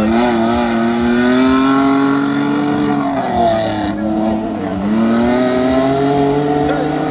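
Off-road race vehicle's engine running under load, its pitch climbing slowly, dropping about three seconds in and then rising again.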